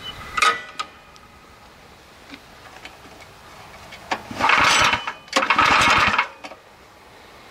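Two pull-starts of a Kohler small engine's recoil starter, each cranking the engine over for just under a second, with the drive belts engaged so the splitter's flywheels turn along; the engine does not catch and run. A short metallic clink about half a second in.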